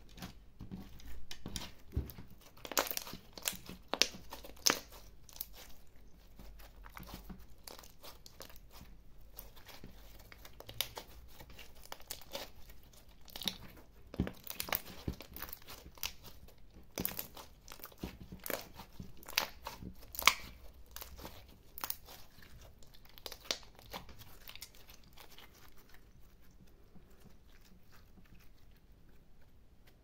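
Clear glitter slime with small beads mixed in, being stretched, squeezed and folded by hand. It gives off irregular clusters of sharp sticky pops and crackles that grow sparser in the last few seconds.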